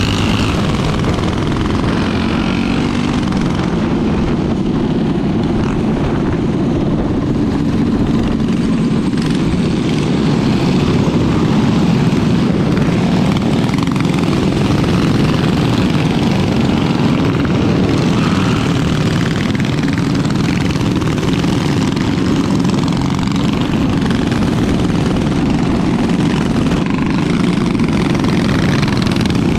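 Mini bike engines running steadily while riding, a continuous loud drone with no letup.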